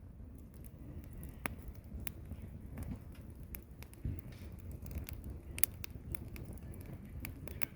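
Firewood burning, crackling with sharp, irregular pops over a low steady rumble; the loudest pop comes about five and a half seconds in.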